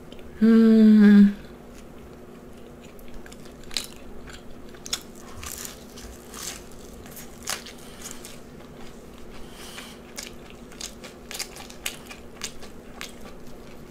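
Close-miked eating: chewing and crunching of food, with many short sharp bite and mouth clicks. About half a second in, the eater makes one short loud hummed vocal sound at a steady pitch.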